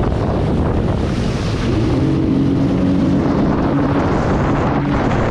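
Wind buffeting the microphone over the engine of a powered watercraft running at speed across the water. A steady engine tone comes through more clearly in the middle.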